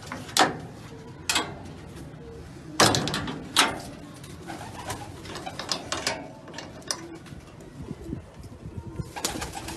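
Iranian high-flyer pigeons cooing softly, with four loud sharp clatters in the first four seconds and lighter scuffling and ticking after.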